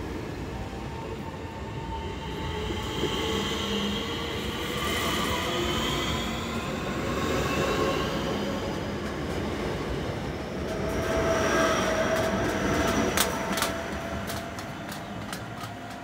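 Southeastern Class 465 Networker electric multiple unit accelerating away: its traction motors give several rising whines over the rumble of the wheels. Late on comes a run of sharp clicks from the wheels on the track, and the sound then fades as the train pulls away.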